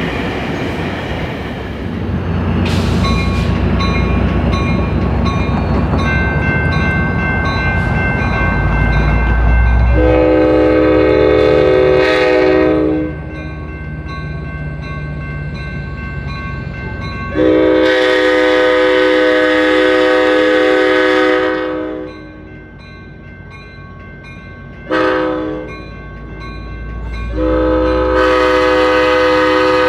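Locomotive air horn sounding the grade-crossing signal of two long blasts, one short and one long, over the rumble of a passing train.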